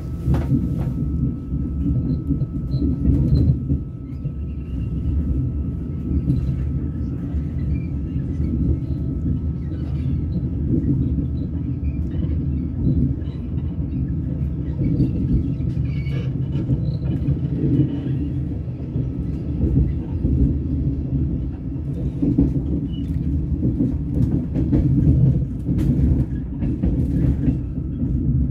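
Railway carriage running along the track, heard from inside: a steady low rumble with scattered faint clicks from the wheels and rails.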